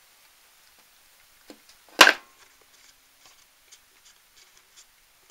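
A single sharp knock about two seconds in, with a short ringing tail, among faint scattered clicks and rubbing.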